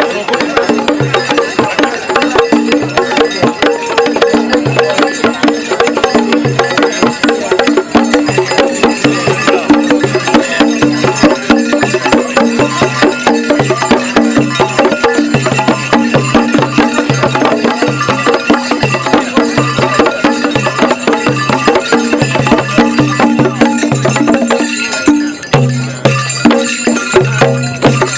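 Batá drums playing a continuous rhythm: deep pitched drum strokes repeat steadily under a busy layer of sharper hand strokes and rattling percussion.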